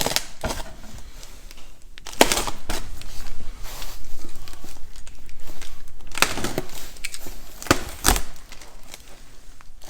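Packaging being handled during unboxing: plastic wrap crinkling and styrofoam and cardboard rubbing as parts are pulled from the box, with a few sharp knocks and scrapes.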